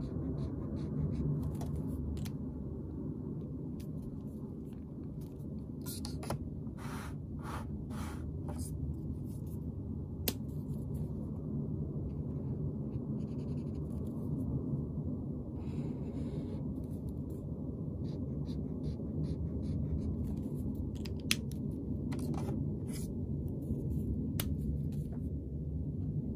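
Stabilo Boss pastel highlighter's felt chisel tip scratching across notebook paper in short strokes and zigzags, with a couple of sharp ticks, over a steady low rumble.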